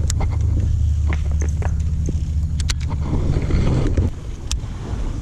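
Low, steady hum of a boat motor that stops abruptly about four seconds in, with several sharp clicks and knocks on top.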